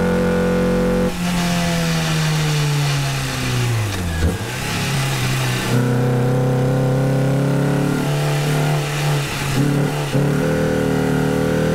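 Renault Clio 172's 2.0-litre four-cylinder engine pulling hard on a hillclimb run, heard from inside the cabin. Its note holds mostly steady, drops in pitch as the revs fall a few seconds in, then shifts up and down a few times before steadying near the end.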